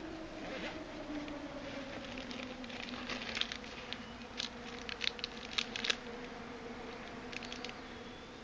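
A flying insect buzzing close by in a steady hum whose pitch slides slowly lower over several seconds. A scatter of sharp clicks comes through in the middle.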